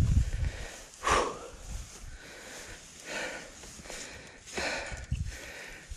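Irregular rustling and scraping of dry brush and branches as someone pushes through a dense thicket on foot, with the strongest burst about a second in.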